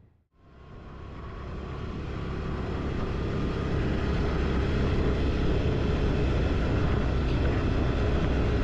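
Quad (ATV) engine running steadily under way, with riding noise; after a brief drop to silence it fades in over the first few seconds and then holds level.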